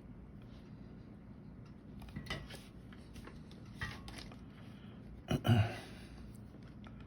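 Small metal clinks and knocks from tools and the board being handled during soldering, three times, the last and loudest a knock with a deeper thud about five and a half seconds in. A faint steady hum underneath.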